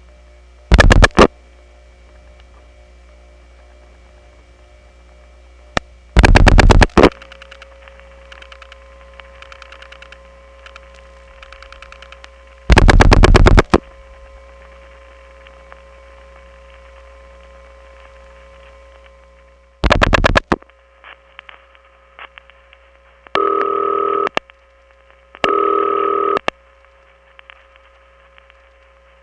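Telephone ringing heard over the line on a call into a step-by-step central office: four loud, buzzy ring bursts about six seconds apart over a steady line hum, with faint tones in the gaps. In the last few seconds, three shorter, clearer tone bursts of a different signal follow.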